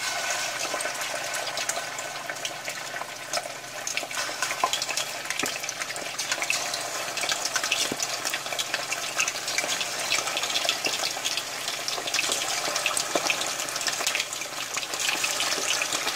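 Cornstarch-dusted chicken drumettes frying in hot oil in a cast iron skillet: a steady sizzle full of small crackles and pops, swelling a little near the end as more pieces are dropped in.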